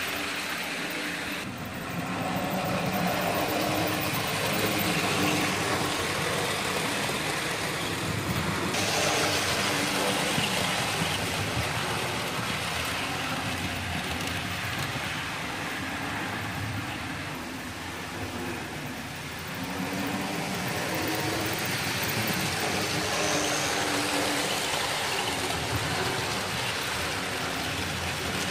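Hornby 00 gauge model trains running on the layout's track: a steady mechanical running noise that swells about two seconds in and dips briefly past the middle.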